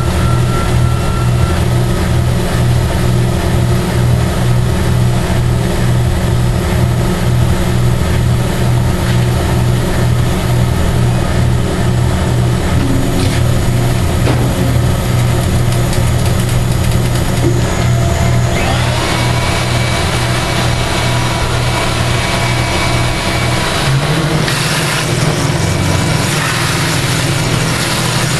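CNC-converted Jet JMD-15 mill/drill running, its spindle driving an end mill through a brake rotor to cut a slot, with a loud steady low hum that pulses rapidly. About two-thirds of the way through a higher whine joins in and holds to the end.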